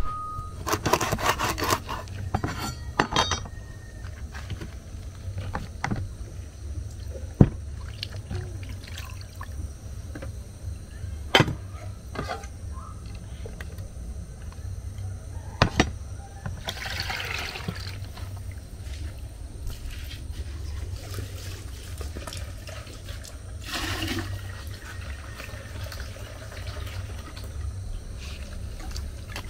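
Hands preparing fish: sharp knocks of a knife on a wooden cutting board, water sloshing and splashing in a plastic bowl, and water being poured, with occasional clinks of handling.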